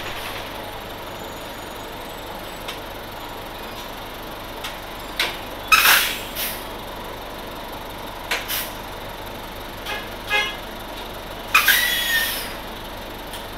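1996 Nova Bus RTS-06 transit bus with its Detroit Diesel Series 50 engine running steadily. Several short sharp hisses and squeaks break in, the loudest cluster near the end.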